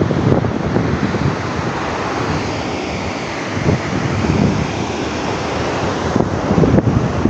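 Loud, continuous rush of tsunami water surging, swelling and ebbing, with wind buffeting the microphone.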